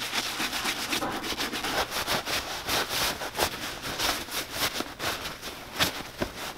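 Rapid scrubbing strokes of a bristle brush working saddle-soap lather into a leather boot, then a towel rubbing the soap off the leather.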